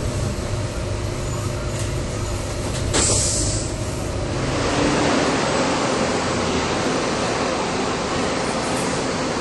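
Interior running noise of a Volvo B290R LE hybrid city bus on the move: a low rumble with steady drive tones, and a short sharp hiss of air about three seconds in. After about four and a half seconds the rumble drops away, leaving the even, echoing noise of a covered bus terminal.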